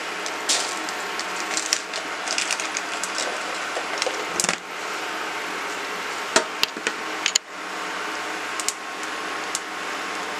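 Cumin seeds crackling in hot ghee in a non-stick kadai: irregular sharp pops scattered through a steady hiss, tempering the spices at the start of a curry.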